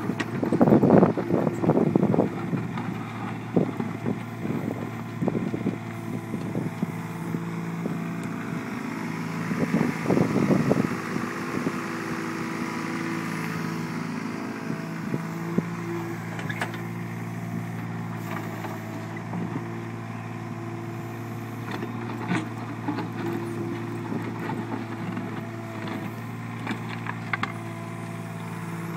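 Volvo mini excavator's diesel engine running steadily, with louder rough working noise near the start and again around ten seconds in, and a few scattered sharp clanks.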